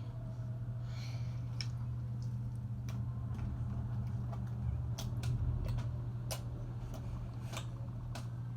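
Sticky slime being kneaded by hand, giving scattered small clicks and pops, more of them after about five seconds, over a steady low hum.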